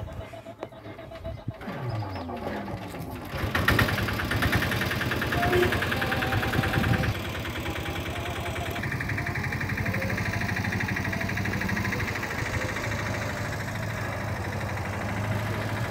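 Engines of tempo three-wheelers (auto-rickshaws) running close by: a rough, fast, even pulsing with a steady low hum. It comes in loudly about three and a half seconds in and runs on steadily.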